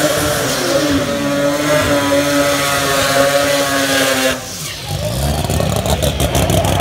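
Drag race car engines at high revs: one engine runs steadily, its pitch sliding down and then holding, and cuts off suddenly about four seconds in. Another engine then revs up and breaks into a rapid crackle of pops near the end.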